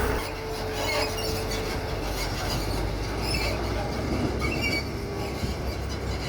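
Hitachi Zaxis 210 hydraulic excavator working, its diesel engine running steadily under a low hum, with scattered short high metallic squeaks.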